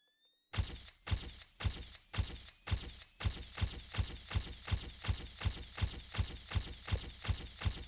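A steady pulse of heavy hits, about two a second, each dying away before the next, after a faint rising whistle at the very start. This is an intro sound effect or beat leading into theme music.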